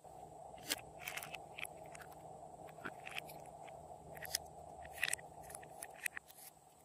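Small plastic cosmetic containers being handled and opened: a dozen or so short clicks, taps and light scrapes of plastic cases and lids. A faint steady hum runs underneath.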